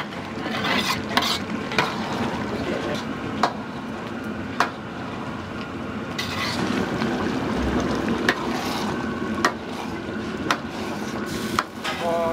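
Food sizzling and frying in a wok, with the metal ladle stirring and sharp clanks against the wok about every second.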